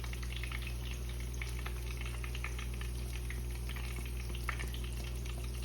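Hot oil from a tarka of green chillies and curry leaves sizzling and crackling in small scattered pops, over a steady low hum.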